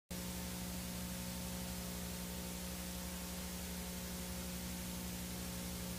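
Steady hiss with a low electrical hum from blank videotape playback, cutting in abruptly right at the start.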